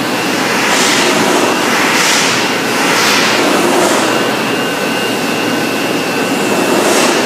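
Steady industrial machine noise, a loud even rushing hum with a faint high whine that becomes plainer about halfway through.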